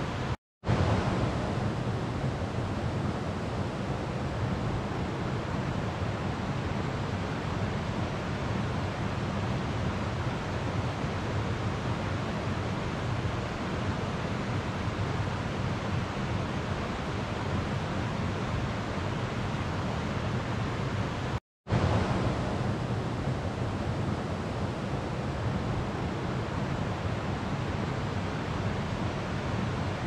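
Slow river water flowing in a steady, even rush. The sound drops out completely for a split second twice, about half a second in and again about twenty-one seconds in, then resumes.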